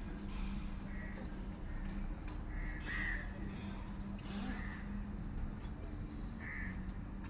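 Crows cawing: several short caws a second or two apart, over a steady low hum.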